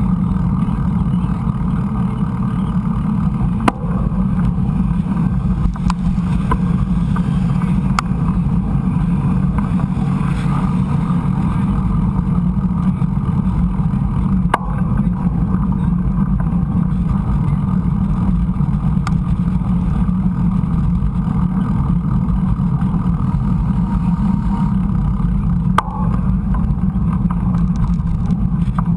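Steady low rumble of wind and trail noise on a GoPro's microphone while a mountain bike is being ridden, with three sharp knocks spread through it.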